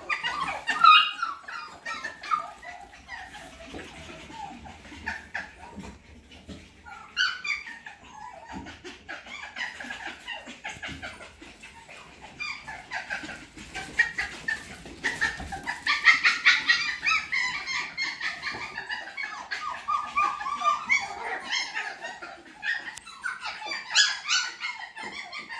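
F1B mini goldendoodle puppies playing, giving many short high yips and whines. One loud yip comes about a second in, and the calls grow busier about two-thirds of the way through.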